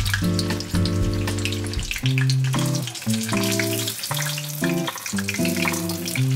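Spring rolls frying in shallow oil in a pan, a steady crackling sizzle. Background music with held chords plays underneath.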